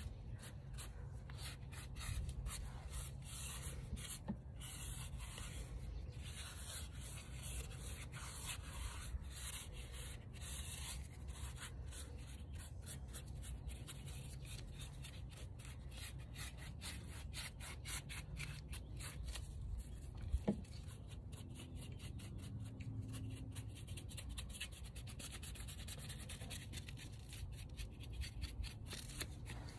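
Paintbrush dry-brushing white paint across rough, textured cast concrete in quick, repeated short strokes, a dry scratchy scrubbing.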